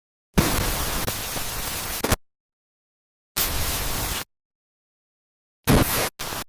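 Bursts of static hiss that start and stop abruptly, with dead silence between them: one of about two seconds, a shorter one near the middle, then two quick ones near the end.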